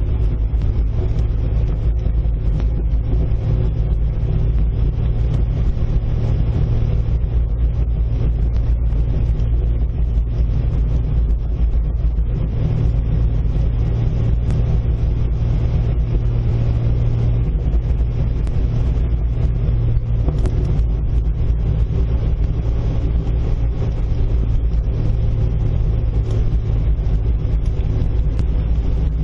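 1997 Jeep TJ Wrangler driving slowly down a gravel road, heard from inside the open-topped cab. The engine runs at a steady low rumble over tyre and road noise.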